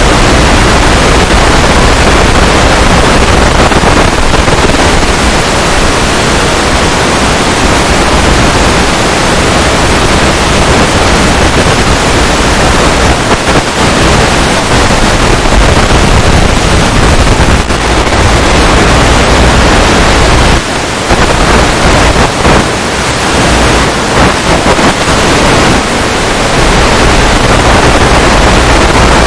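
Loud, even hiss of static across all pitches, with no engine or motor tone in it. This is typical of the empty audio channel of an analog FPV video receiver, as recorded by a Fat Shark Dominator2 headset. The hiss dips briefly a few times in the second half.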